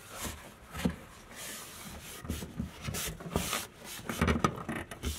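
A thin wooden countertop panel being handled and flipped over, scraping and rubbing against surfaces with several knocks and thuds.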